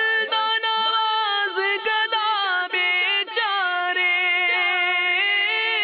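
Male voice singing an a cappella Urdu manqabat, drawing out a long wordless melisma between lines, over a steady held backing tone.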